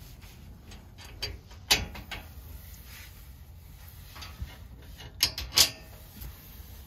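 Scattered sharp knocks and clicks of metal MOLLE shelf panels and mounting brackets being handled and fitted, the loudest near two seconds in and a close pair about five and a half seconds in.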